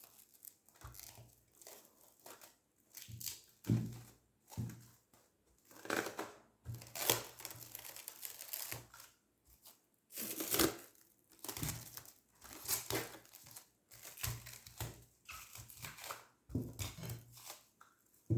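Intermittent crinkling and rustling with short light knocks, from a glass jar of homemade lemon-and-ginger cough syrup being closed up by hand.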